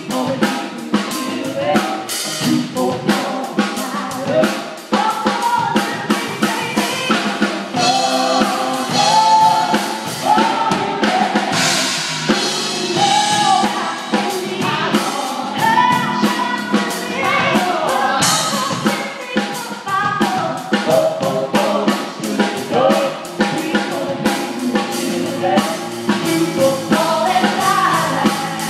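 Live praise team singing a gospel worship song with a full band: voices in harmony over a drum kit keeping a steady beat.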